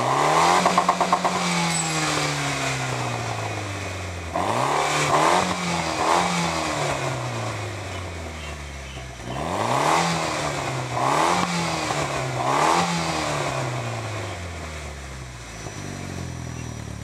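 Mitsubishi Lancer Evolution X's turbocharged 2.0-litre four-cylinder revved through a freshly installed CP-e cat-back exhaust. It gives one rev, then two sets of three quick throttle blips, each time falling back slowly, and settles to idle near the end.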